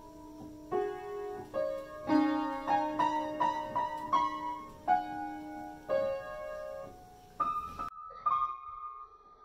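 Upright piano keys pressed at random by a cat: single notes and small clusters struck irregularly, a dozen or so, each left ringing.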